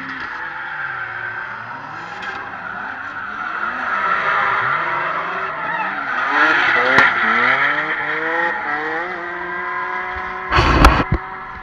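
Drift cars' engines revving up and down over and over, with a long tyre squeal as they slide on the tarmac. Near the end, a loud burst of rubbing and knocks on the microphone as the camera is handled.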